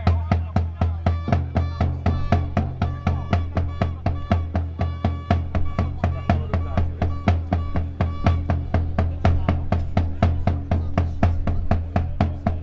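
Music with a fast, steady beat, about four beats a second, over a held bass note.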